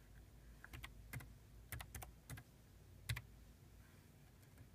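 Computer keyboard keys pressed one at a time: faint, sharp clicks at an uneven, unhurried pace as a password is typed.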